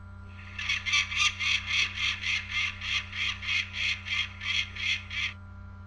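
Phone ringtone playing: a rapid, even chirping pulse about four times a second, starting about half a second in and stopping suddenly after roughly four and a half seconds.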